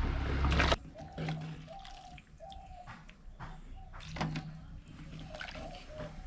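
Cut green mango pieces tipped into a steaming clay pot of hot liquid, with a loud splashing hiss that cuts off suddenly within the first second. Then a spoon stirring the mango in the pot's liquid, quieter, with a couple of sharp knocks against the clay pot.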